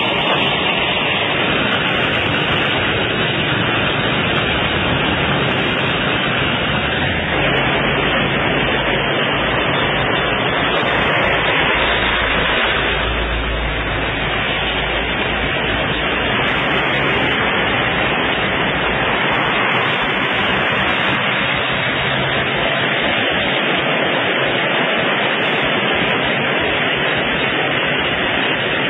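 Steady, loud hiss of noise with no speech, and a low rumble underneath that shifts a few times.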